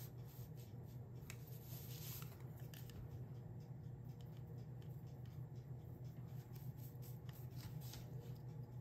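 Faint, irregular scratchy strokes of a nearly dry fan brush dragged over a glass piece, laying thin lines of black enamel, over a steady low hum.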